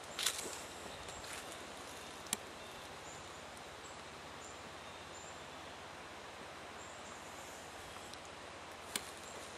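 Quiet woodland ambience: a steady outdoor hiss with faint, short high chirps in the middle. A few footsteps crunch on the leaf-littered forest floor, near the start, once a couple of seconds in, and once near the end.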